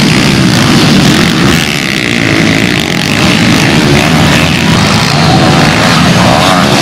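Several small pit-bike engines racing, revving hard, their pitch rising and falling over each other as riders work the throttle.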